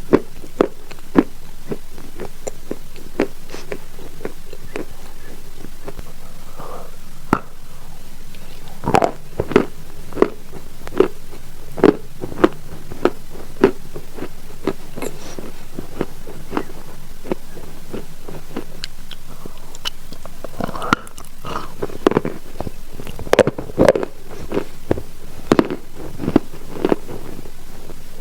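Someone biting and chewing chalk close to the microphone: a long run of short, sharp crunches at an uneven pace, thickening into quicker flurries at times.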